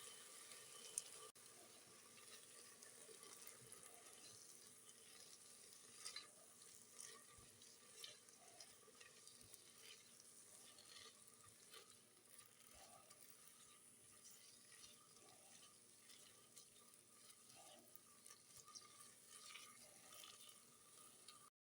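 Faint sizzling of food frying in a pan, with scattered clicks and scrapes of a utensil stirring. The sound cuts off abruptly near the end.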